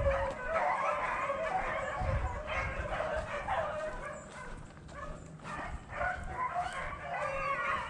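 A pack of beagles baying in full cry, their overlapping voices calling almost without a break and fading somewhat partway through: hounds giving tongue as they run a rabbit's trail.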